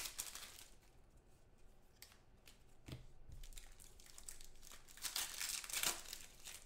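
Foil trading-card pack wrapper crinkling and tearing as a pack is opened and the cards are handled, with a few light clicks and the loudest crinkling about five seconds in.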